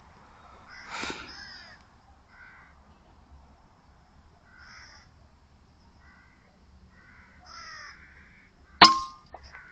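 Crows cawing several times, then near the end a single sharp shot from a Taipan Veteran 2 PCP air rifle, the loudest sound, with a brief ring after it and a fainter click just after.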